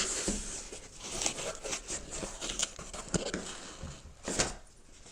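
Cardboard box being opened by hand: a run of irregular rustles, taps and scrapes of cardboard and packing, with a louder scrape about four seconds in.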